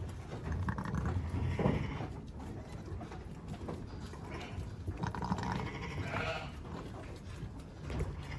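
Icelandic sheep bleating twice, once about a second in and again around five seconds in, with a few light knocks between.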